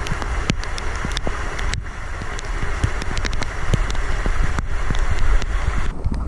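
Rain hiss with wind buffeting the microphone in a heavy low rumble, scattered with sharp taps; the rain hiss drops away shortly before the end.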